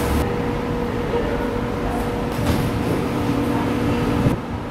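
Steady mechanical hum of a London Underground station, with a held tone that cuts off abruptly near the end.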